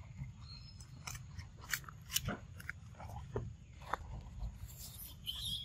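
Dry leaf litter and twigs crackling and crunching under scrambling monkeys: a string of sharp irregular clicks and crunches over a steady low rumble, with a short high squeak near the end.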